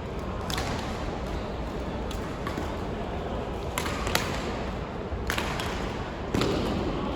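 Badminton rally: a shuttlecock struck back and forth by rackets, about seven sharp cracks at uneven intervals over steady background noise.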